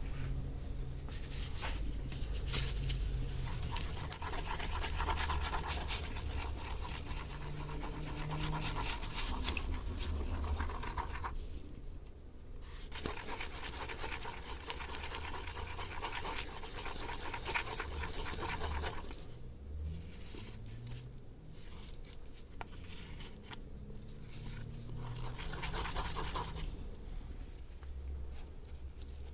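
Irregular scratching and rubbing that stops briefly twice, over a low hum that shifts in pitch now and then.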